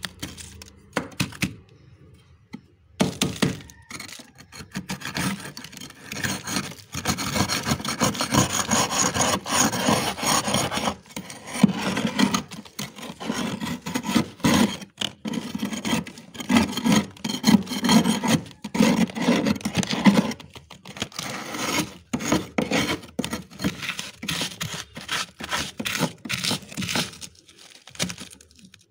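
Metal spoon scraping and gouging thick frost build-up inside a freezer: continuous gritty scraping and crunching strokes, with a short pause about two seconds in and sparser crackles near the end.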